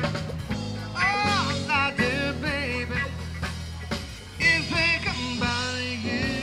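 Rock-and-roll music with a singing voice.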